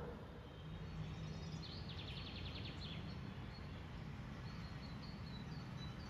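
Outdoor city ambience: a steady low hum of distant traffic, with birds chirping. About a second and a half in, a bird gives a rapid trill of roughly ten notes a second that lasts just over a second.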